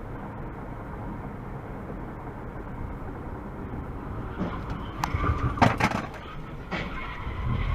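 Steady road and engine noise from a moving car, then a cluster of sharp bangs about five to six seconds in and one more near seven seconds: a vehicle collision.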